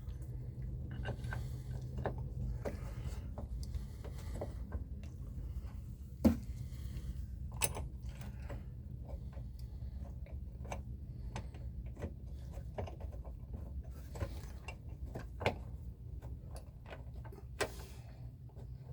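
Scattered clicks and light knocks of a metal hinge bracket being handled and fitted back onto a refrigerator wall, a few sharper knocks among them, over a steady low hum.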